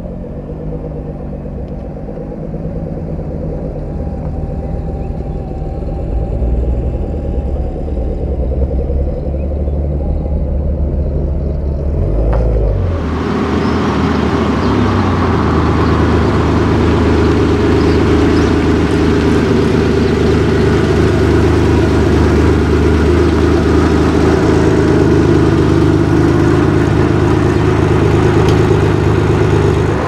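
A Nissan GT-R's twin-turbo V6 running at low revs, then, from about thirteen seconds in, the louder, steady engine note of a classic air-cooled Porsche 911 flat-six driving by.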